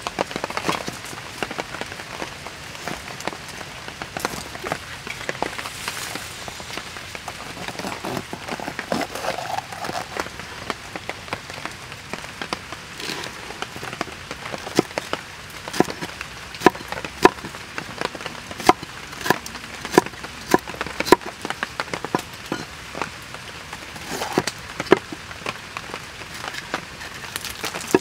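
Large knife slicing pineapple and bell peppers and knocking on a wooden cutting board. Softer cuts come first, then a run of sharp chops about two a second through the middle and later part, over a steady hiss.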